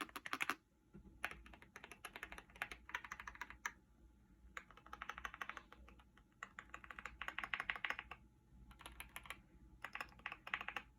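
Typing on a Keychron mechanical keyboard with linear switches: quick runs of keystrokes in about six bursts, with short pauses between them.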